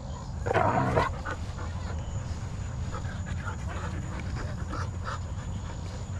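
Siberian huskies at play: one dog gives a short vocal call about half a second in, then dogs pant.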